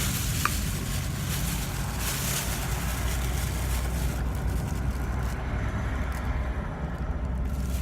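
Steady low rumble of a vehicle idling, heard inside the cab, with a hiss over it that fades out about halfway through.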